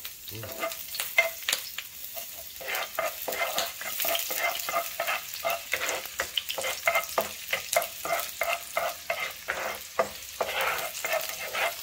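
Chopped garlic frying in a little hot oil in a pan, sizzling, while a utensil stirs it, making frequent short scrapes and knocks against the pan.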